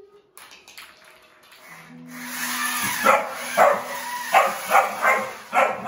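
Yellow Labrador puppy barking repeatedly, about six short barks in the second half, over a steady whirring hum.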